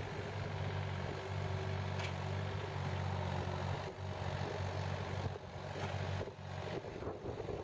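Compact excavator's diesel engine running steadily, with a few knocks now and then.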